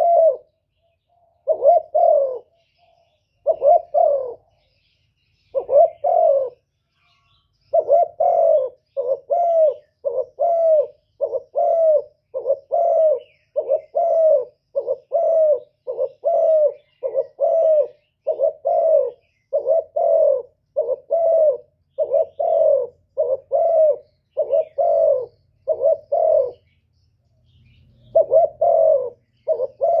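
Spotted dove cooing close up: short low coos, each dipping slightly in pitch, spaced out in ones and twos at first, then a steady unbroken run of about one and a half coos a second. The coos pause briefly near the end and then start again.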